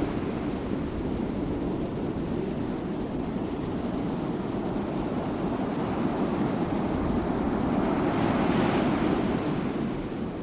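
Sea waves washing on the shore: a steady rush of surf that eases, then swells into a breaking wave about nine seconds in, with some wind buffeting the microphone.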